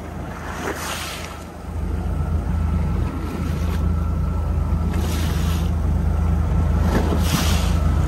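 A fishing boat's engine running under way, its low hum growing louder about two seconds in, with wind and passing washes of wave noise.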